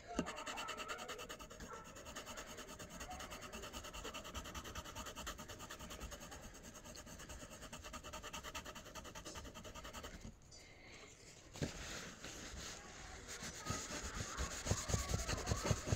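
Graphite pencil, a 2H, scratching on drawing paper in quick, even shading strokes for about ten seconds. After a short pause, a fingertip rubs over the paper to blend the shading, with a few soft knocks.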